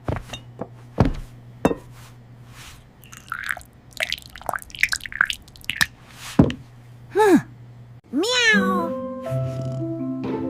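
Cartoon cat meowing twice, the second call rising then falling. Before them comes a string of short clicks and taps over a low held note of background music. After them a simple melody of held notes begins.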